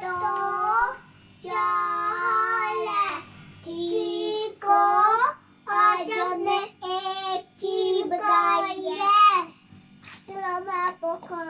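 Two young boys singing together in phrases of a second or two, with short breaks between.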